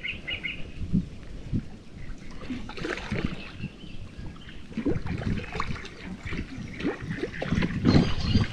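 Irregular splashing and sloshing of shallow water around a landing net as a hooked carp is brought in through the reeds.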